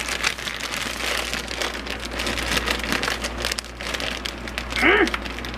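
Thin plastic bag of mini sweet peppers crinkling and rustling as it is handled and opened, a dense, irregular crackle.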